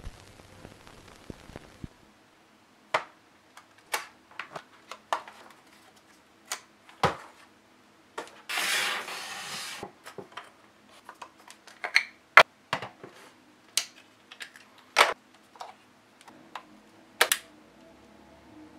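Close handling of a Canon DSLR camera on a table: a string of sharp clicks and knocks from its body, buttons, lens and caps, with a scraping, rustling sound lasting nearly two seconds about halfway through. A faint crackle like old-film static runs for the first two seconds.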